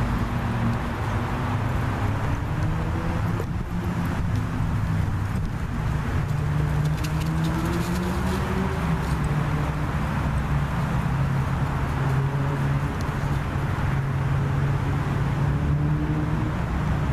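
Steady low hum of road traffic, with engine drone that shifts slowly in pitch.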